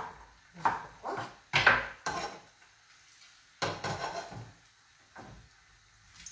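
Kitchen knife cutting through an artichoke stem onto a wooden cutting board: four or five quick chops in the first two seconds. A short clatter of a frying pan shifted on the gas hob's grate follows past the halfway point.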